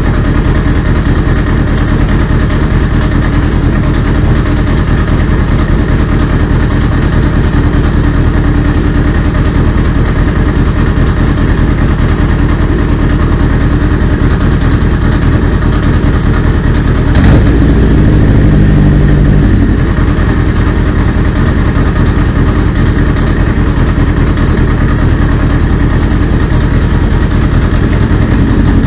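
1979 Honda CB750 DOHC's air-cooled inline-four engine idling steadily. A little past the middle it runs briefly louder for about two seconds before settling back to idle.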